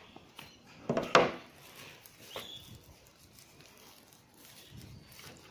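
Handling noise from a smartphone being turned over in the hands, with a couple of sharp knocks about a second in and faint rubbing and clicks after.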